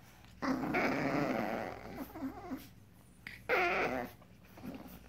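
Seven-week-old Frenchton puppies growling as they play, a long rough stretch in the first half, then a short, higher-pitched puppy cry about three and a half seconds in.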